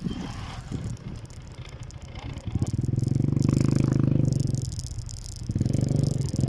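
Small motorcycle engine running close by, its exhaust pulsing loudly for about two seconds from two and a half seconds in and again near the end, with quieter rattling noise before it.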